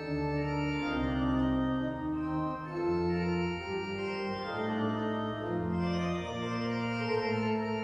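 Church pipe organ playing slow, sustained chords, the held notes changing about once a second over a stepping bass line.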